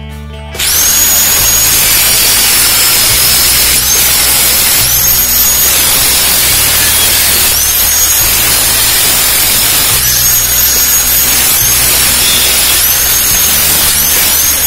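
Handheld angle grinder cutting through a sheet-metal stove frame, starting about half a second in: loud grinding hiss with a high whine that dips in pitch each time the disc bites into the metal and climbs back as it frees.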